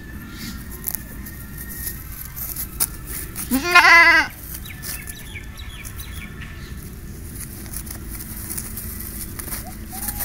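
A goat bleating once, about three and a half seconds in: a single loud, quavering bleat lasting under a second.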